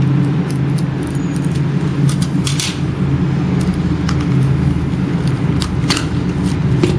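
A steady low hum throughout, with scattered short crinkles and clicks of packaging being handled as a sealed trading-card box is opened.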